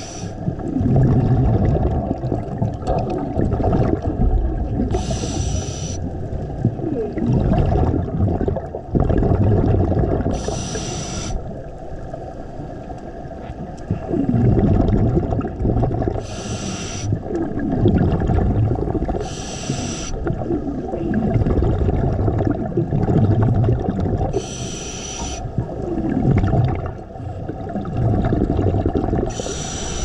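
Scuba regulator breathing heard underwater: about every three to six seconds a short hissing inhale with a thin whistle, each followed by a long rumbling gush of exhaled bubbles.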